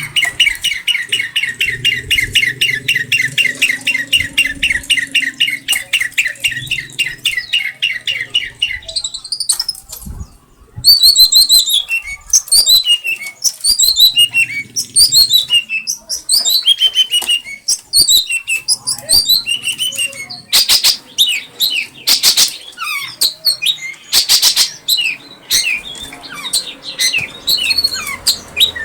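Songbird singing: a fast run of rapidly repeated notes for about nine seconds, then after a short pause a varied string of falling whistled phrases, the learned imitations ('isian') that the bird keeper shows off.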